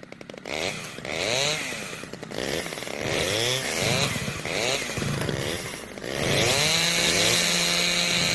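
Chainsaw engine revving up and dropping back again and again, then held at a steady high rev from about six seconds in.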